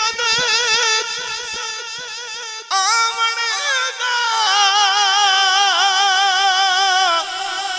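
An unaccompanied man sings a Punjabi Sufi verse in long drawn-out melismatic notes with a wide, steady vibrato. One phrase ends and a new one starts a little under three seconds in, followed by a long held line.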